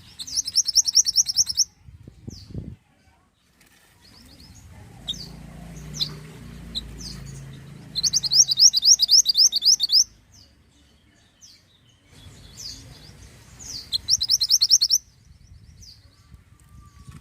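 Small minivet (mantenan) singing: three bursts of rapid, evenly repeated high notes, one near the start, one halfway through and one near the end, with short single chirps in between.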